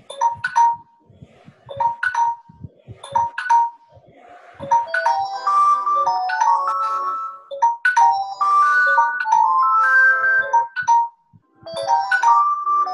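A chiming, ringtone-like tune: a pair of bell-like notes repeats about once a second, then from about four seconds in a quicker melody of many bell notes at changing pitches, breaking off briefly near the end.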